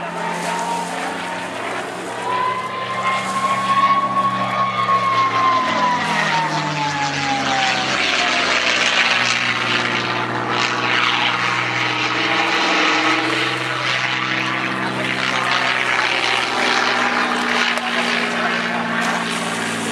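North American P-51D Mustang's Packard Merlin V-12 engine and propeller running hard while the fighter flies aerobatics overhead. The engine note shifts in pitch as the aircraft passes and manoeuvres. A high whine rises and then falls away over the first several seconds.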